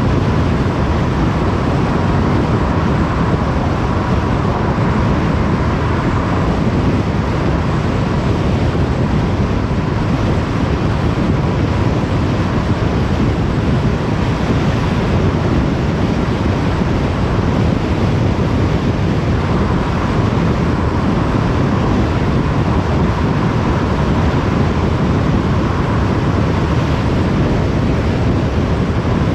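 Steady tyre and wind noise of a car cruising on a motorway, a low, even rush with a faint high hum that comes and goes.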